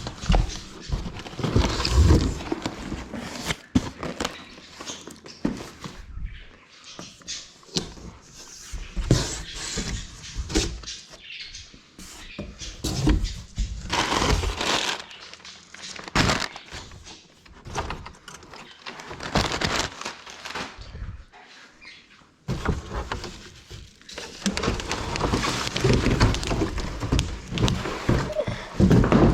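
Packing material and bike parts being handled during unboxing: irregular rustling and crackling with scattered knocks and thunks, in a small room.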